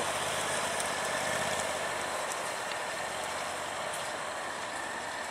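Max IV 6x6 amphibious ATV's engine running steadily as the vehicle drives off over rough ground, with a faint steady whine, slowly growing fainter.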